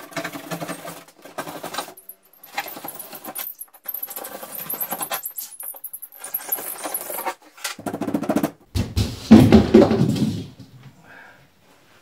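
Knife cutting through a refrigerator door's foam insulation along a cut-out square: a run of short scraping, crackling strokes, then a louder crunching sound about nine seconds in.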